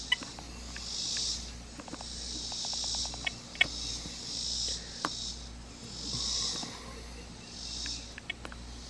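Insect chorus in a steady, pulsing high hiss that swells and fades about once a second, broken by a few sharp clicks, the loudest about three and a half seconds in.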